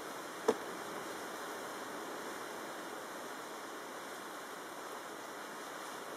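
Steady rush of tropical-storm wind and choppy, wind-driven water. One sharp click about half a second in.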